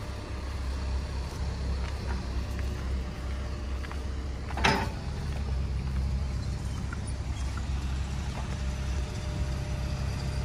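Hyundai 160 excavator's diesel engine idling with a steady low rumble, and a single sharp knock about halfway through.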